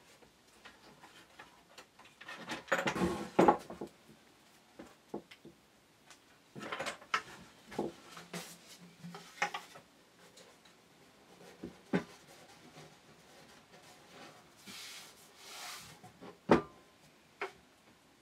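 Pieces of wood and clamps being handled on a workbench: scattered knocks and clicks, with a couple of brief rubbing or sliding sounds. One sharp knock near the end is the loudest sound.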